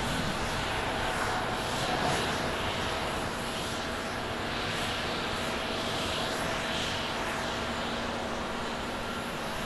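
Japan Airlines Boeing 777-300ER's twin GE90-115B turbofans at takeoff thrust as the jet lifts off and climbs out: a steady jet roar that slowly fades as it moves away.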